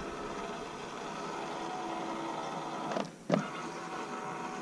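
Electric trolling motor running steadily with a hum, cutting out briefly about three seconds in and then running again.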